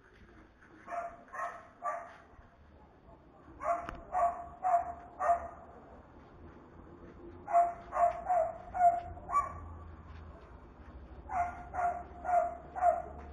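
A dog barking in four short runs of three to five barks each, the barks about half a second apart.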